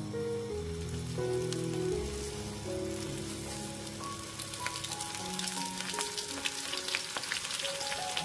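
Starch-coated pieces of semi-dried pollock sizzling and crackling in hot oil as they are dropped into the pan one after another, the crackle and popping growing busier from about halfway through as more pieces go in. Background music plays underneath.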